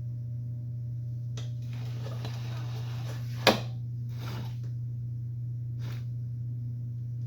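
Chop saw's rotating base being handled: a few faint scrapes and knocks and one sharp click about halfway through, over a steady low hum.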